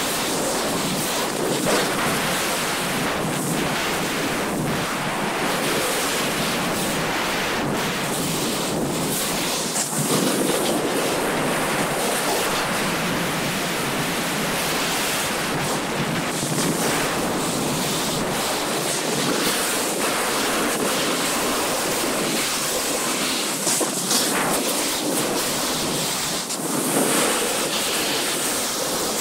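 Wind rushing over the camera's microphone during a downhill run on snow, mixed with the steady hiss of sliding over packed, groomed snow, swelling briefly now and then.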